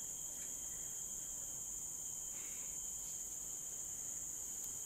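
Steady, high-pitched drone of a tropical forest insect chorus.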